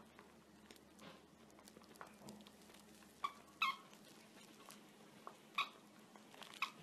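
Great Pyrenees puppy chewing and tugging a plush toy, with a few short high-pitched squeaks, two close together a little past halfway and one more near the end.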